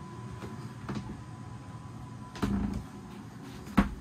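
A dull thump a little past halfway and a sharp knock near the end, like handling noise in a wooden boat cabin, over a steady low hum. A faint high steady whine in the background stops about halfway through.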